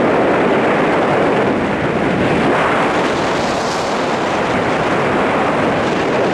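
Loud, steady wind rushing over the camera microphone as a tandem skydiving pair descends under the parachute.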